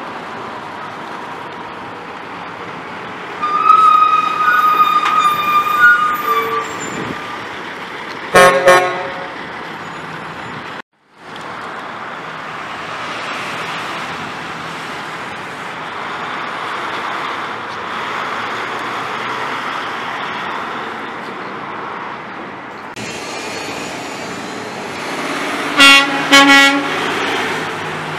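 Semi truck horns: one long blast a few seconds in, then two quick toots. After a cut, the steady engine and tyre noise of semis and cars passing on the street, with two more short horn toots near the end.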